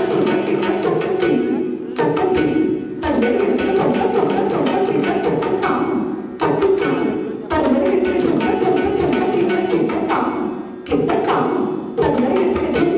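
Live Carnatic music accompanying Bharatanatyam dance: a singer over a sustained drone, with regular mridangam drum strokes and metallic ringing from the cymbals that keep the beat.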